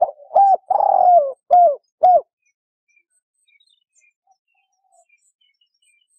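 A dove cooing: one phrase of five coos in about two seconds, the third one held longest and falling in pitch at its end.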